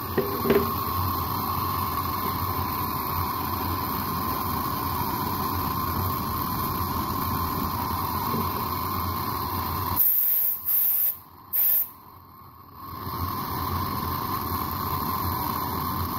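Blowtorch flame hissing steadily. About ten seconds in, it breaks off for roughly three seconds, with a few brief bursts of noise, then resumes.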